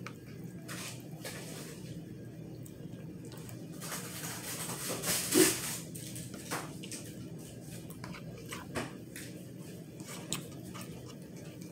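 Eating sounds: a plastic fork scraping and clicking against a plastic bowl while scooping rice and chicken, with mouth noises from chewing. The loudest sound is a short noisy one about five seconds in, as a forkful goes into the mouth.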